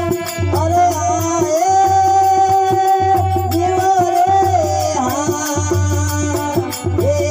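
Rajasthani Marwari devotional bhajan music: a long held melodic note with glides, over regular drum strokes and a steady high jingling beat.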